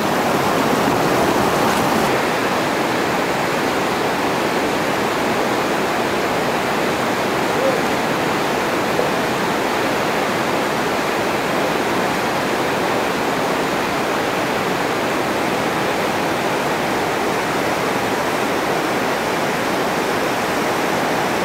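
Whitewater rapid rushing over and around granite ledges: a steady, unbroken rush of churning river water.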